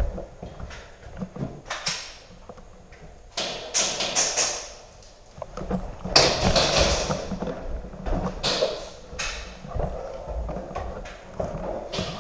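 Footsteps on a hard floor and the rustle and knock of tactical gear as a player moves through an indoor building, in irregular scuffs and clicks with a longer rustling stretch partway through.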